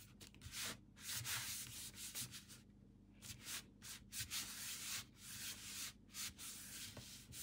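Hands rubbing and pressing a glued paper card panel flat onto its card base: repeated dry, hissing strokes of skin sliding over paper.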